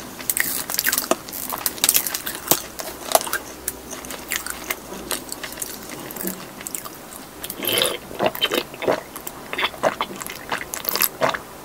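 Close-miked mouth sounds of chewing, with many sharp wet clicks and smacks. Near the end come gulps of a drink from a plastic bottle.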